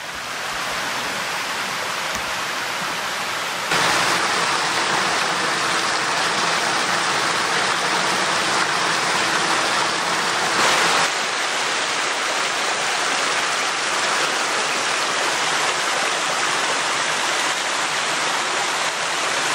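Rushing water of a woodland creek, a steady rush that grows louder about four seconds in.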